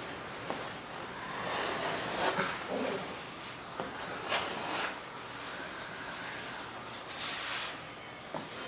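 Small hand plane shaving down the wooden leading edge of a model jet's vertical stabilizer, in several scraping strokes a second or two apart.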